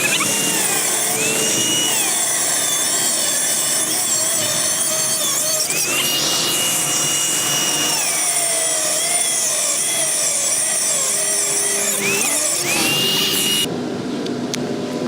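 A handheld power tool cutting, with a steady whine that drops and rises again several times as the tool is pressed into the work and eased off. A harsh hiss runs with it until near the end.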